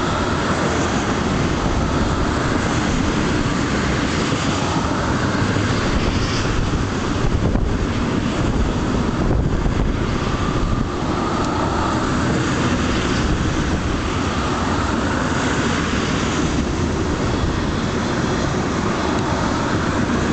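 Tank cars of a freight train rolling past on the rails: a steady rumble of wheels on track that keeps an even level throughout.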